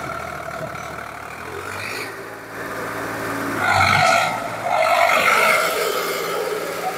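A tractor's diesel engine running steadily at idle. It is joined by a louder, irregular stretch of sound about halfway through.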